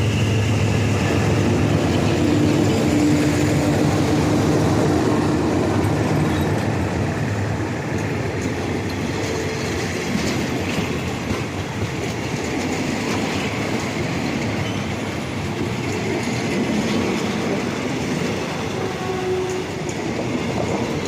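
GE GEK-class diesel-electric locomotive No. 4004 running past with its engine humming, followed by its passenger coaches rolling by on the rails with wheel clatter. The engine hum is loudest in the first several seconds, then gives way to the steady rumble of the train.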